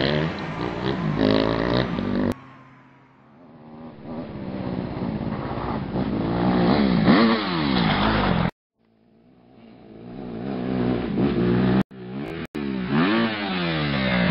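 Motocross bike engine revving hard, its pitch climbing and dropping again and again through the gears. It fades as the bike rides away and builds as it comes back under throttle. The sound breaks off abruptly several times.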